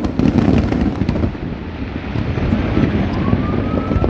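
Fireworks going off in quick succession: a sharp crack at the start, then a dense run of booms and crackle, with a thin rising whistle near the end.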